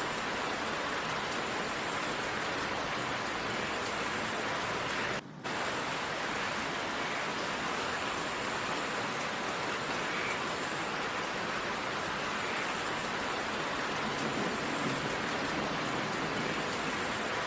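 Steady downpour of rain, a continuous even hiss, broken by a momentary gap about five seconds in.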